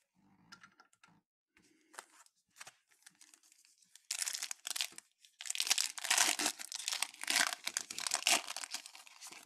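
Wrapper of a 2022 Topps Chrome Update baseball card pack crinkling loudly as it is torn open, starting about four seconds in with a brief pause, after a few faint clicks of cards being handled.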